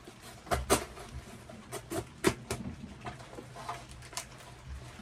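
Handling noise: a scattering of sharp clicks and taps as small electronic units and switch panels are pressed and set into a plywood panel, the loudest about three-quarters of a second and two and a quarter seconds in. A faint steady low hum runs underneath.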